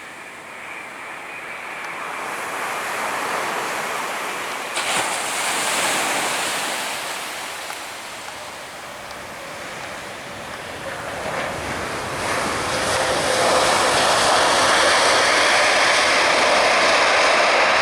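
Waves washing on the beach, with wind buffeting the microphone. A louder, steady rushing noise swells in over the last third.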